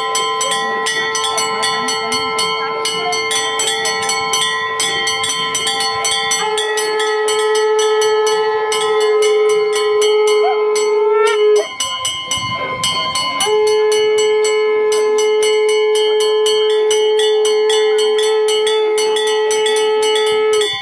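Temple bells ringing rapidly and without a break, over a long, steady horn-like tone. The tone cuts off for about two seconds in the middle, then is held again.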